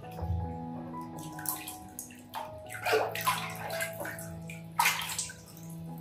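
Water splashing and sloshing in a plastic basin as a small monkey paddles and swims, with several short splashes, the strongest about halfway through and near the end.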